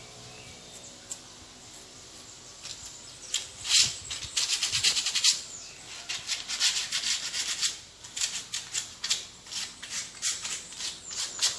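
Sandpaper rubbed by hand over small painted bricks in quick back-and-forth strokes, starting about three seconds in, with short pauses. This is smoothing rough spots so they won't show through the new paint.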